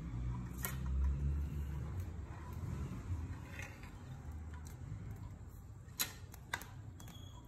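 Low rumble of the phone microphone being handled, with a few sharp clicks and taps from a telescopic fishing rod being handled and set down on a tile floor: one click early, then two close together near the end.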